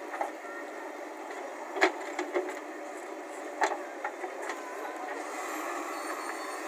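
JCB backhoe loader engine running steadily as the backhoe arm digs and swings. Several sharp metallic clunks and knocks come over it, the loudest about two seconds in and again a little past three and a half seconds.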